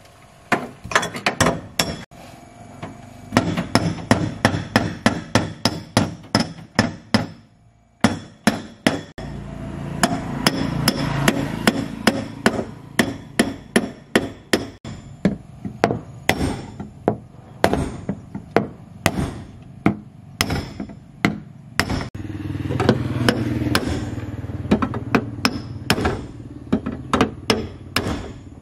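Hammer blows on metal, struck rapidly at about four a second, with a short pause about eight seconds in. A low steady hum runs underneath from about nine seconds in.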